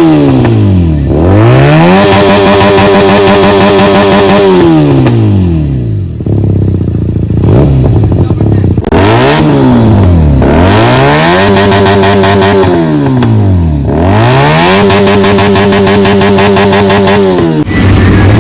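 Benelli 300's parallel-twin engine through a loud aftermarket exhaust, revved up and held at steady high revs for a couple of seconds, then dropping back, four times over.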